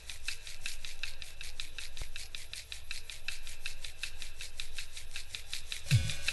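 A steady, rhythmic rasping, about seven evenly spaced pulses a second. Low notes come in near the end.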